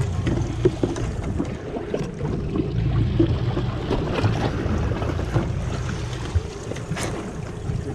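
Boat at sea: a steady low rumble with wind buffeting the microphone and water sloshing around the stern, with a few light knocks.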